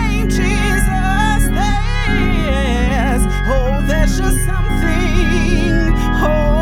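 Gospel music: a sampled Hammond A100-style organ holding chords over a steady bass, with a voice singing wordless, wavering runs on top.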